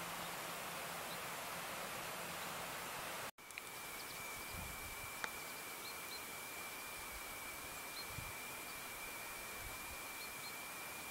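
Quiet rural outdoor ambience: a steady even hiss with a few faint, high chirps of small birds. After an abrupt cut about a third of the way in, a steady high-pitched tone sounds continuously under the hiss, with a few soft low thuds.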